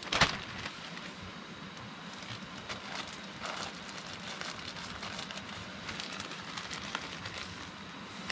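Portable gas camp stove burner running with a steady hiss under a pot of rice simmering, with faint crackling clicks from the bubbling pot. A sharp knock comes right at the start.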